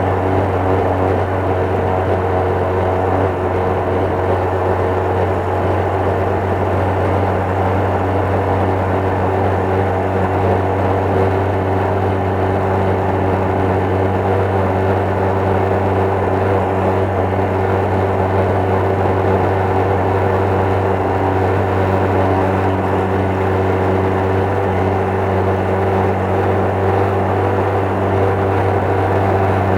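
Honda Little Cub's 88cc single-cylinder four-stroke engine running at a steady speed, its pitch holding constant throughout.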